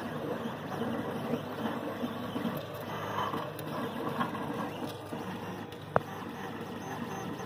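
Monoprice Maker Select 3D printer at work: its stepper motors whir and chirp in quick, shifting tones as the print head moves about laying down filament. One sharp click about six seconds in.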